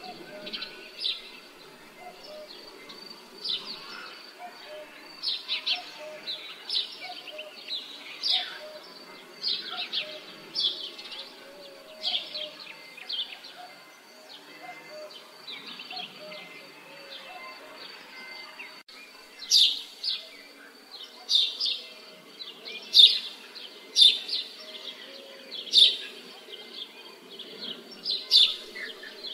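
Birds chirping over a faint steady outdoor background, in short high calls repeating about once a second. The calls grow noticeably louder about two-thirds of the way through.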